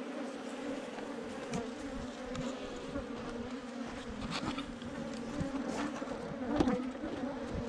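Swarm of Africanized honeybees buzzing in a steady, dense hum, with a few light knocks, the loudest near the end.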